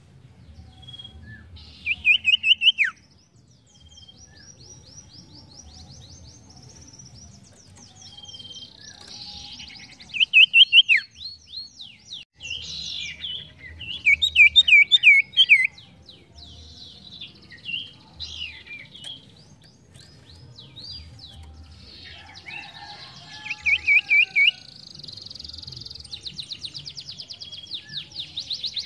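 Caged sirtu songbird singing: bursts of fast, repeated chirping notes, loudest a little after 2 s, around 10 s, around 14–15 s and around 24 s in, then a long rapid trill near the end. A faint low rumble lies underneath.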